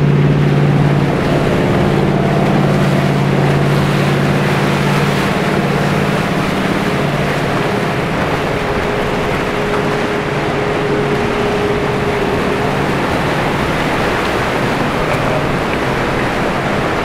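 Motor yacht passing close by: the low steady drone of its engines fades about five seconds in, leaving the rush of its churning wake on the water.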